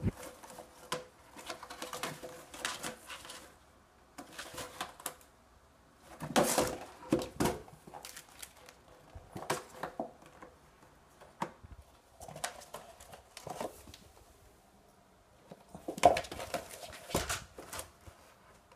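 Kitten at rough play with its toys: bouts of scratching, rustling and light knocks that come and go, with a sharp knock at the start and louder scrambles about six seconds in and near the end.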